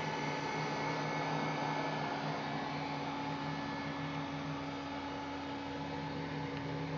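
PC power supply running the incubator, its cooling fan giving a steady whir with an electrical hum underneath.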